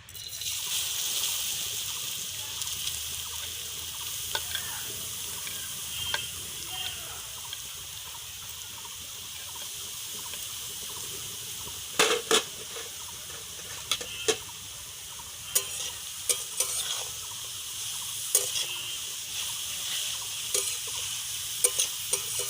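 Grated carrot dropped into hot ghee in a karai, sizzling at once and then frying steadily. From about halfway, a spatula knocks and scrapes against the pan as the carrot is stirred.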